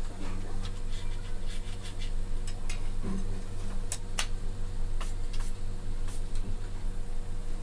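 Scattered light metal clicks and taps as an air rifle's barrel is handled and fitted to its action, the two sharpest close together about four seconds in, over a steady low hum.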